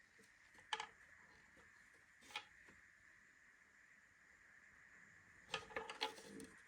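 Faint scattered clicks and light taps over a quiet steady hiss: one sharp click about a second in, another a little past two seconds, and a quick cluster of taps near the end.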